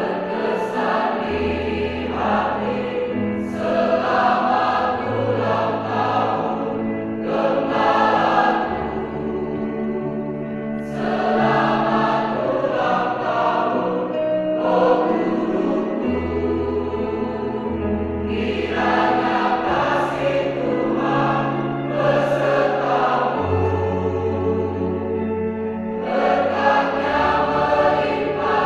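Large mixed choir of men and women singing in harmony, holding sustained chords that shift every second or two, with steady low bass notes underneath.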